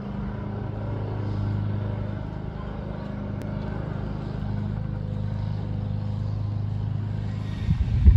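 Steady low vehicle hum, even and unbroken, with a few irregular low thumps starting near the end.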